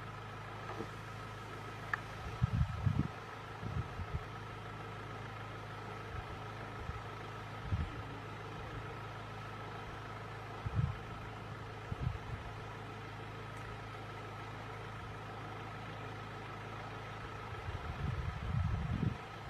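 Vehicle engine idling with a constant low hum, broken a few times by short low bumps, the longest run of them near the end.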